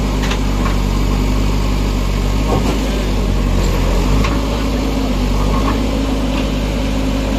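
JCB backhoe loader's diesel engine running steadily, with a few faint clicks over it.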